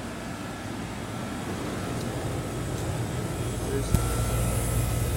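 Two Trane XB10 central air-conditioner condensing units running, their condenser fans and Copeland reciprocating compressors giving a steady hum with a faint high whine. The low hum grows louder a little past halfway, with a single knock about four seconds in.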